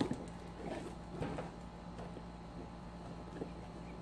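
Quiet room with a steady low hum, and a few faint soft knocks and rustles of handling in the first second and a half.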